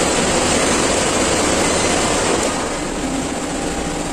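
Getra B20 planetary dough mixer's 750 W electric motor running steadily at speed 1. It now starts normally, its faulty start capacitor replaced, where before it would only hum when the start button was pressed.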